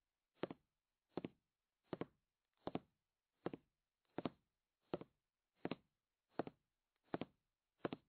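A steady series of soft, evenly spaced thuds, about four every three seconds, like a slow beat, each dropping quickly in pitch.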